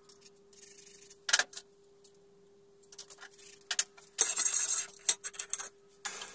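Steel swarf and metal parts clinking and rattling on a drill press's cast-iron table, with a louder scraping rush about four seconds in, over a faint steady hum. Just before the end a steady motor hiss starts.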